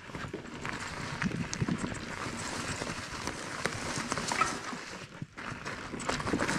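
Mountain bike rolling down a rough, rocky trail: tyres crunching over the ground and the bike rattling, with many quick knocks. It goes briefly quiet about five seconds in, then comes a hard knock near the end.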